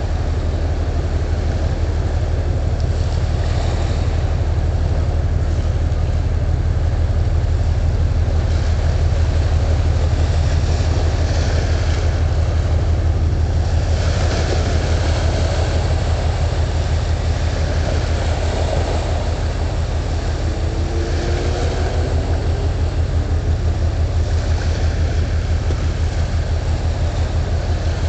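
Deep, steady marine engine drone with a fast, even throb, over wind and water noise.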